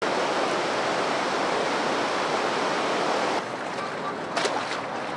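Shallow river water running over stones, a steady rushing. About three and a half seconds in it drops abruptly to a quieter running-water sound, with a few short splashes near the end.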